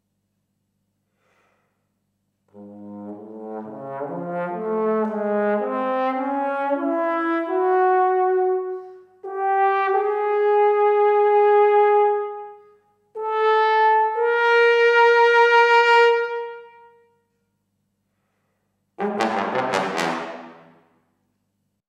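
Unaccompanied trombone playing. After a couple of seconds of quiet it climbs in a rising run of notes from the low register, then holds several long sustained notes higher up. After a pause it ends with a short, rough-toned final note near the end.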